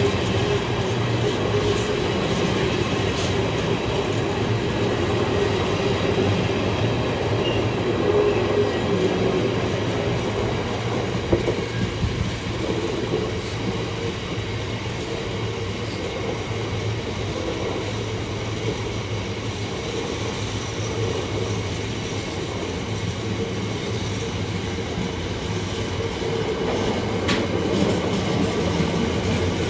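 Class 66 diesel-hauled container freight train running by, a steady rail rumble with wheels clacking over the track.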